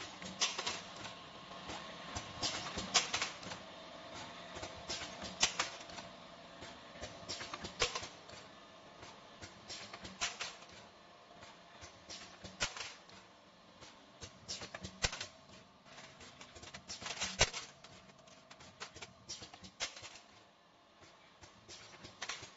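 Automatic pipe chamfering machine running: a faint steady hum under irregular metallic clicks and clacks, with several sharper knocks spread unevenly through it.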